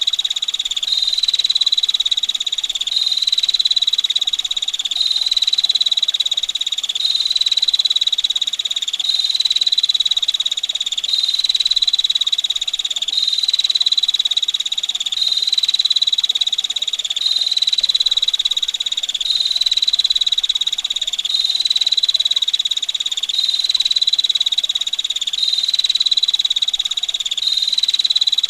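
A small songbird's rapid, rattling trill held at one high pitch, running on without pause in back-to-back phrases a little over a second long.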